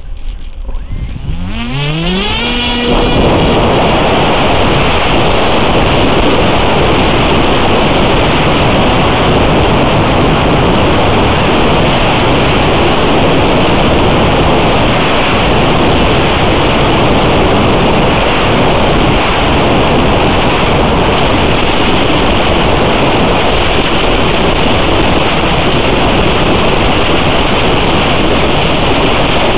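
Small brushless motor (stock 2207, 1300 KV) of an FPV wing spinning up with a rising whine over the first few seconds, then a steady loud rush of propeller and wind noise on the onboard microphone in flight.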